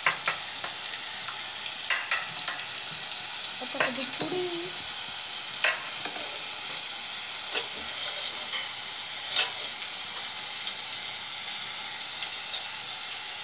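Chopped onion frying in hot oil in a kadhai: a steady sizzle with sharp clicks and pops now and then, the loudest about nine seconds in.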